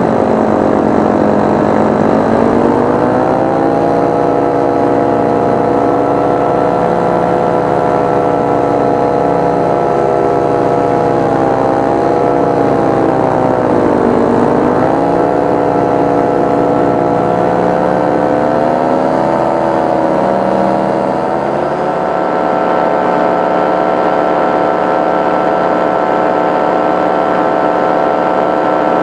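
Powered paraglider's engine and propeller running steadily in flight. The engine speed rises about two seconds in, sags around the middle and picks up again near the end.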